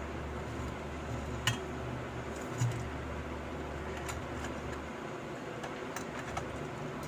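Light handling clicks and a soft knock from a small die-cast Hot Wheels '71 Mustang Funny Car being picked up and set against carded blister packaging, over a steady low hum that drops out about five seconds in.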